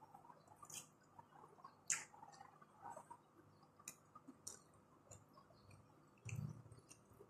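Faint chewing and lip smacks of someone eating fried chicken with her fingers: scattered soft wet clicks, with a low thud about six and a half seconds in.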